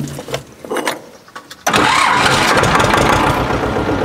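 T-25 tractor's two-cylinder air-cooled diesel starting: a few knocks, then about a second and a half in it catches and runs steadily. This is the first start after a new fine fuel filter was fitted and the fuel system bled, and it runs normally.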